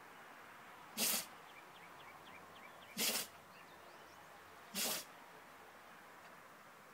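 Standard Schnauzer sneezing three times, about two seconds apart, each sneeze short and sharp, in a sneezing fit it can't stop.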